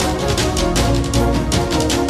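Background music with a fast, steady percussive beat.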